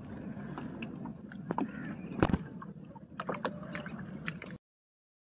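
Fishing net being paid out by hand over the side of a small boat: scattered knocks and rustles of the net, floats and hands against the hull over a steady bed of water and boat noise, the loudest knock about halfway through. The sound cuts off suddenly near the end.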